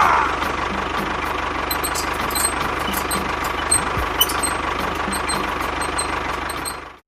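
Small motor of a homemade model tractor running steadily with a faint whine, stopping abruptly at the end.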